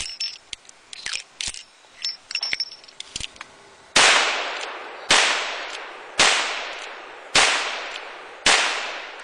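STI Texican single-action .45 Colt revolver: light metallic clicks as cartridges are loaded and the cylinder is turned. Then five shots about a second apart, each trailing off in a long echo.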